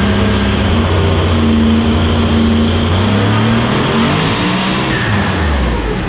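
Single-turbo HEMI V8 drag-car engine at full throttle during a dyno pull, heard from the cockpit, with its pitch falling away about four seconds in as the pull ends.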